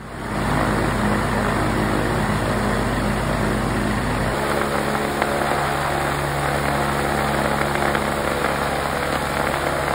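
Two-cylinder Polaris ATV engine, converted for aircraft use, running steadily on a test stand and turning a propeller. The sound fades in at the start, and its note changes abruptly about four seconds in.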